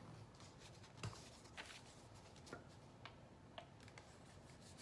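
Near silence broken by a handful of faint clicks and taps from a plastic bottle of acrylic craft paint being picked up, opened and squeezed over a paper plate; the clearest click, with a soft thud, comes about a second in.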